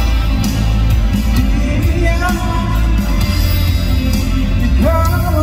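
Live pop song played loud through an arena's sound system: a man singing into a microphone over a backing track with strong bass, his voice swinging up in pitch about five seconds in.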